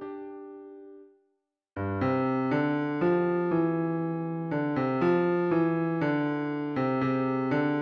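MIDI piano playback of the tenor and bass lines of a choral arrangement. Two held notes die away, then after a short silence, at just under two seconds, lower and higher notes come in together and are struck about twice a second.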